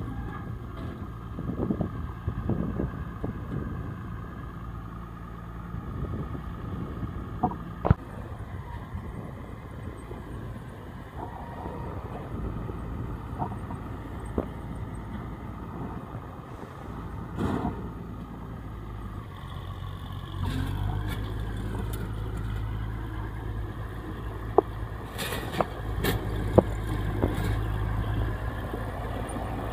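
Farm tractor engine running steadily as it pulls a self-loading bale wagon across a hayfield, louder about two-thirds of the way in as it comes closer. A few sharp clanks stand out, most near the end.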